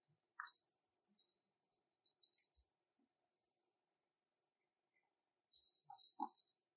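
Birds chirping in rapid, high-pitched trills: a run of about two seconds near the start and another of about a second near the end, with short chirps between.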